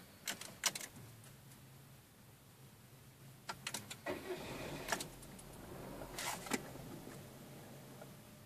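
Car key and ignition switch clicking in a Citroën C4 as the ignition is switched on, with a low steady hum of the car's electrics starting about a second in. A louder rustling stretch comes around the middle, and a few more sharp clicks follow near the end.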